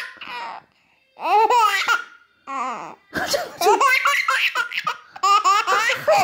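A baby laughing loudly in repeated bouts of high-pitched belly laughs, set off by fake sneezes.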